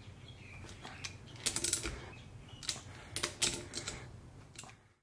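Spanner clicking and clinking against the barrel retaining bolts as they are tightened on a homemade engine's cylinder barrel: small clusters of sharp metal clicks, about a second and a half in and again about three seconds in.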